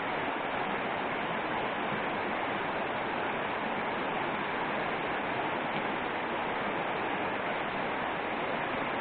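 Shallow mountain stream rushing steadily over a stony bed and a small riffle.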